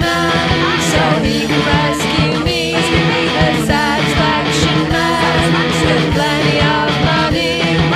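Loud, dense punk rock recording in a noise rock and synth punk style, with guitar, a driving drum beat and wavering high pitched lines.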